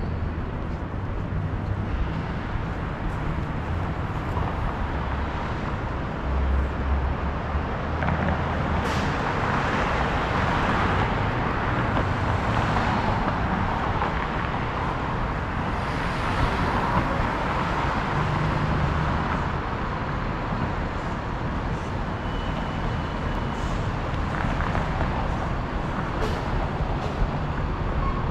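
City street traffic: a steady wash of passing cars and engine rumble, with a few brief knocks.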